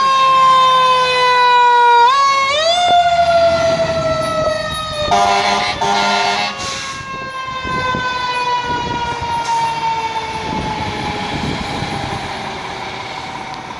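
Fire truck siren winding up quickly about two seconds in, then slowly coasting down in pitch, with a few short air-horn blasts about five to six seconds in. The siren grows fainter as the ladder truck drives away.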